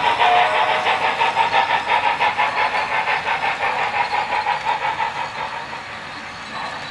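Model D&RGW L-131 2-8-8-2 articulated steam locomotive's sound system chuffing at a quick even beat, about five chuffs a second over a steady hum, growing fainter toward the end.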